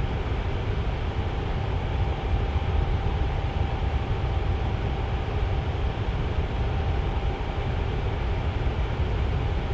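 Tower fan running steadily: a continuous low airflow rush with a faint steady hum.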